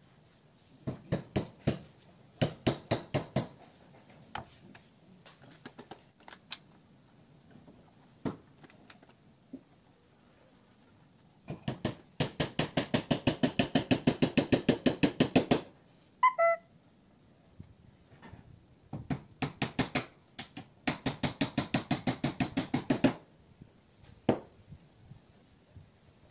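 Hands rubbing glued paper sheets flat against a wooden plank in quick back-and-forth strokes, in several bursts of about eight strokes a second, with a short chirp midway.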